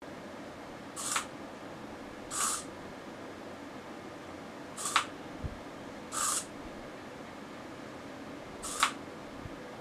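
Small hobby servo on welding goggles flipping the dark lenses, three times: each time a sharp click followed a second or so later by a short buzzing whirr.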